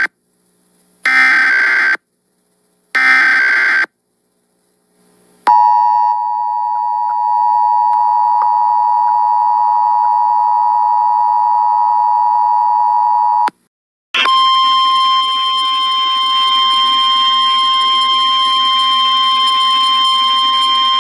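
Emergency Alert System tones. Two short bursts of screeching SAME header data tones, then the two-tone EAS attention signal held steady for about eight seconds. After a brief gap, a steady single tone over a buzzy drone starts about fourteen seconds in and keeps going.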